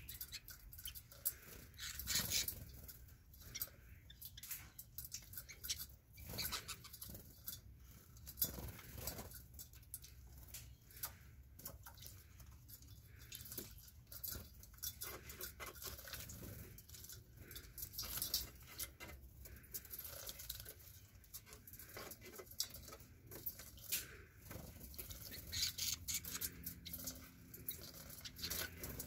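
Canaries bathing in a shallow stainless-steel water bowl: irregular bursts of splashing and pattering droplets as they flick water with their wings.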